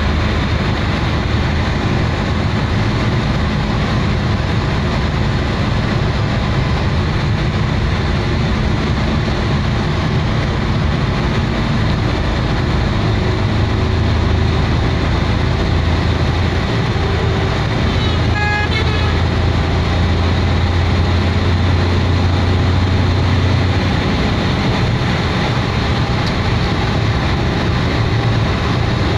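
Engine and road noise inside the cabin of a moving vehicle, a steady low hum that shifts to a deeper note about halfway through. A brief run of high beeps sounds about two-thirds of the way in.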